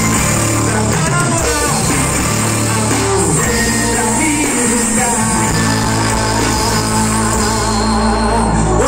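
Live band playing through large stage loudspeakers, heard from the crowd: a male voice singing over electric guitars, drum kit and hand percussion.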